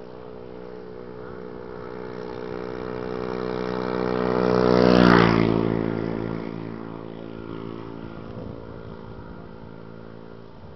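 A motor vehicle approaches and passes close by. Its engine note grows louder, drops in pitch as it goes past about five seconds in, then fades away.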